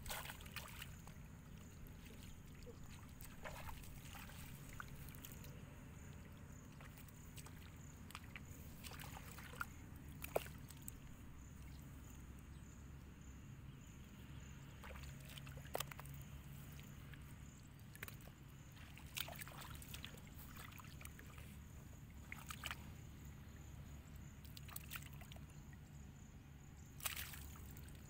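Hands groping and sloshing in shallow muddy water, with scattered small splashes and clicks, the sharpest ones about ten, sixteen and twenty-seven seconds in, over a low steady rumble.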